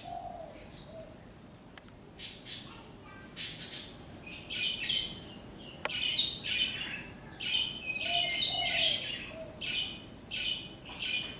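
Small birds chirping and trilling loudly over and over. Beneath them a dove, a zebra dove or spotted dove, coos faintly near the start and again about eight seconds in.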